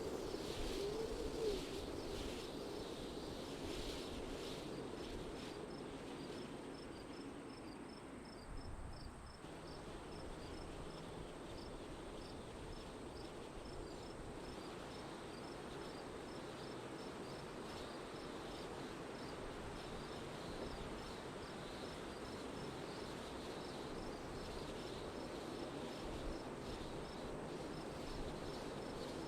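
Wind blowing steadily outdoors, with a cricket chirping at an even rhythm from a few seconds in.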